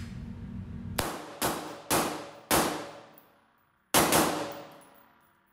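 Suppressed 5.56 mm SIG MCX Virtus short-barrelled rifle with a SureFire SOCOM II Mini suppressor, fired semi-auto: four shots about half a second apart, then one more after a pause of about a second and a half. Each shot is a sharp crack that rings and dies away in the steel-walled range. It is quieter than an unsuppressed shot but still not hearing-safe.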